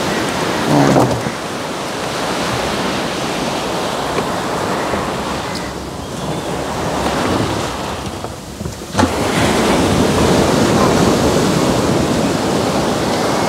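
Sea surf washing in steadily, with a wave breaking about nine seconds in.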